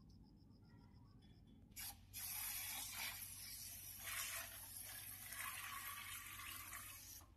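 Water spraying into an air conditioner's indoor unit for a drain test: a short burst about two seconds in, then a steady hiss for about five seconds that cuts off just before the end.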